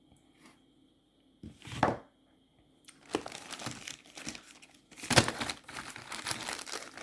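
Fireworks being handled out of a selection box: a couple of soft bumps, then packaging crinkling and rustling from about three seconds in.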